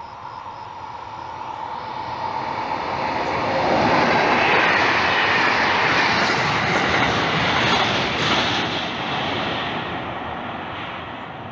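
Freight train of tank-container wagons passing through the station: wheel and rail noise builds over about four seconds, stays loud for several seconds, then fades as the train moves away.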